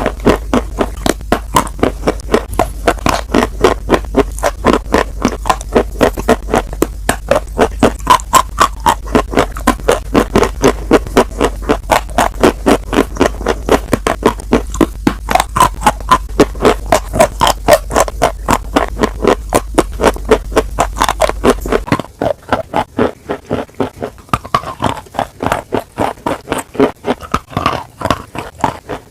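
Close-miked crunchy chewing: a fast, even run of crunches, about three or four a second, throughout. A low hum underneath drops out about three-quarters of the way through.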